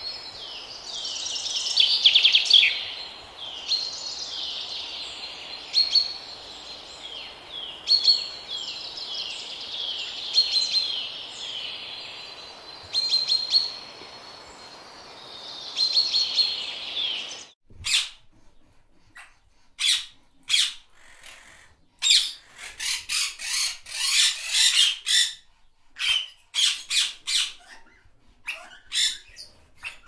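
A dense chorus of birds chirping, many short downward-sweeping calls repeating over a steady hiss. Partway through it cuts off suddenly, and parrots squawk loudly in harsh calls one after another with short gaps between them.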